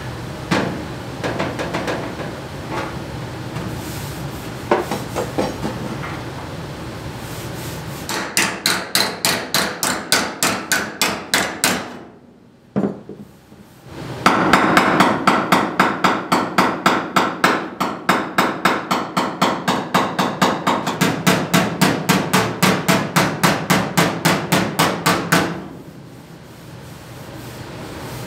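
Hand body hammer striking the sheet-metal edge of a car body panel in fast, even blows, about four a second, tightening the fold. A short run starts about eight seconds in, and a longer run starts about fourteen seconds in and stops shortly before the end. Only a few scattered knocks come before the runs.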